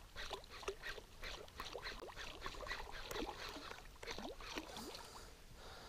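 Faint water lapping and gurgling against the hull of a small fishing boat: irregular little plinks and ticks with no steady rhythm.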